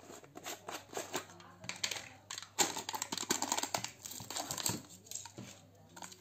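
Plastic screw cap twisted off a plastic snack jar, then the jar's inner seal torn and crinkled open, with a run of small clicks and crackling, busiest in the middle.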